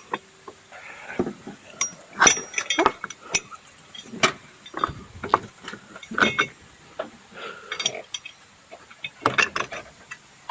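Irregular metallic clinks and knocks of hand tools and bolts as an engine mounting bracket is fitted and fastened.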